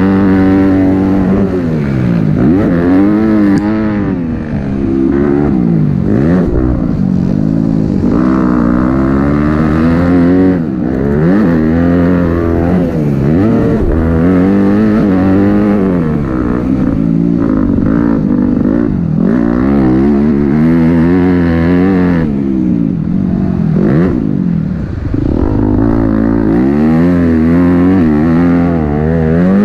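Yamaha motocross bike's engine ridden hard around a dirt track, revving up and dropping back again and again every second or two as the rider accelerates, shifts and rolls off for corners and jumps.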